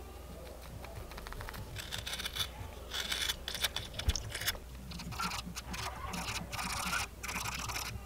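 Craft knife shaving and scraping a small carved wooden piece: a quick run of short, scratchy strokes that grows denser about a second and a half in, with a light knock near the middle.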